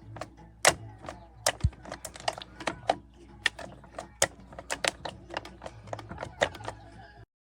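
A run of irregular, sharp clicks and taps, several a second, some with a short ringing after them, which cuts off suddenly just before the end.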